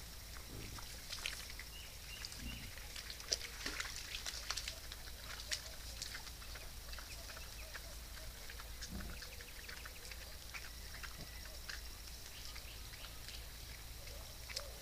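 Wild boars grunting low a few times while moving through grass, with soft crackling and rustling of vegetation.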